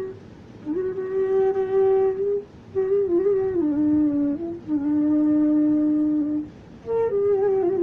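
Solo transverse flute playing a slow melody in raga Khamaj: three phrases with short breaths between them, held notes joined by slides in pitch, ending on a long, steady low note.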